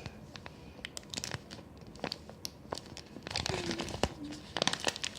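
Homemade squishy being squeezed and handled, its material crinkling and crackling in scattered small clicks that come thicker a little after halfway.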